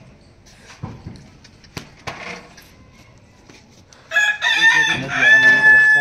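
Rooster crowing, starting about four seconds in: a broken opening, then one long held note.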